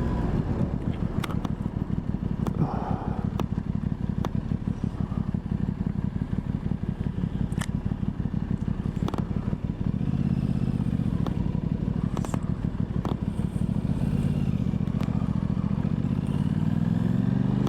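Aprilia Tuono 660's parallel-twin engine running on the move, with its pitch rising near the end as it accelerates. A few sharp ticks are scattered through.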